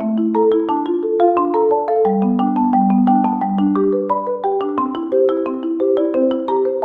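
Background music played on mallet percussion such as marimba, a quick stream of struck notes forming a bouncy melody over lower chords.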